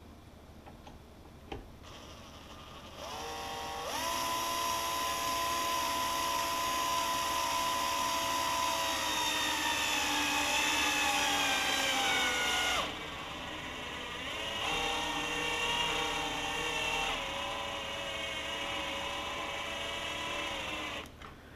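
Cordless drill-driver driving screws to fix a speaker into its panel: a steady motor whine that sags in pitch as the screw tightens. About 13 seconds in it drops to a quieter, lower whine, then cuts off near the end.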